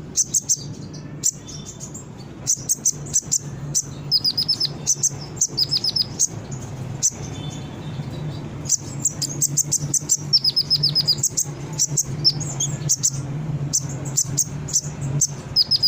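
Olive-backed sunbird (kolibri ninja) singing: rapid bursts of high, sharp chirps and quick falling notes, broken by short pauses, over a faint steady low hum.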